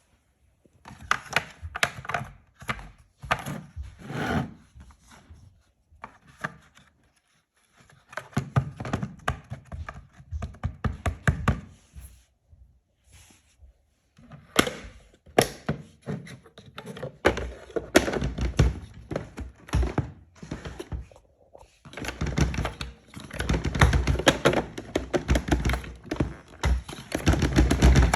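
Plastic parts of a Redmond robot vacuum being handled: irregular clicks, taps and knocks as the dust bin and HEPA filter are taken out and fitted, with brief pauses and a denser run of clatter near the end.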